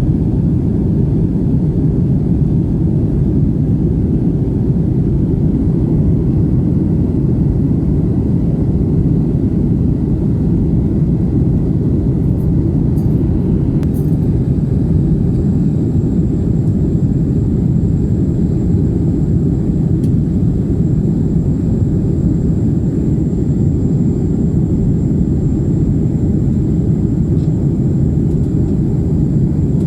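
Steady low rumble of an airliner's engines and airflow, heard from inside the passenger cabin.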